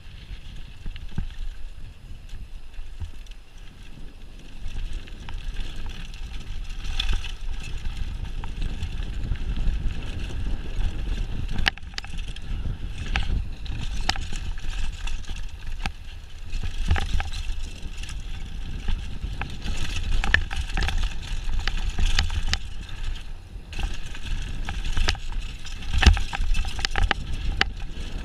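Mountain bike ridden fast down a dirt and rock trail, heard close up from the bike: a continuous low rumble of wind and tyres on the ground, with sharp rattles and knocks as the bike hits bumps and stones.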